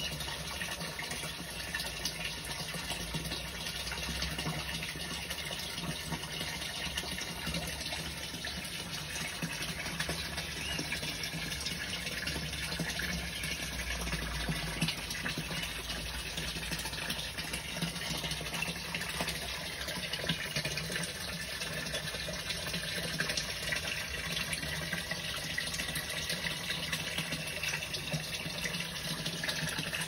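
Pond fountain jet splashing back onto the surface of a koi pond: a steady, unbroken patter and splash of falling water.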